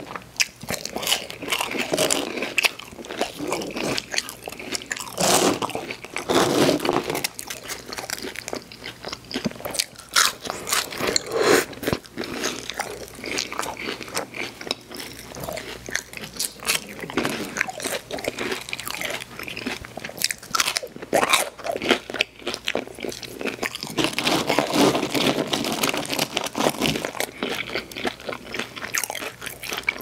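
A person biting and chewing crispy fried food (chicken nuggets and fries) close to the microphone. The crunches are dense and irregular, heaviest about a fifth of the way in and again near the end.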